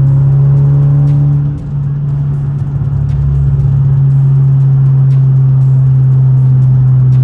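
Ford Focus ST's 2.0-litre turbocharged four-cylinder engine running under way with a steady low drone. The engine eases off about a second and a half in, then builds back up over the next couple of seconds.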